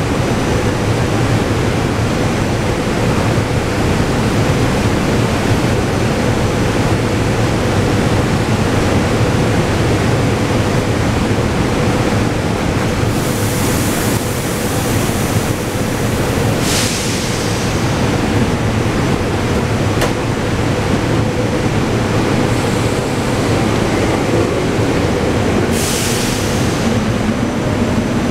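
SEPTA Regional Rail electric multiple-unit train standing at an underground platform, its equipment giving a steady hum and drone, with several short bursts of air hiss and a single sharp click. Near the end the train begins to pull away.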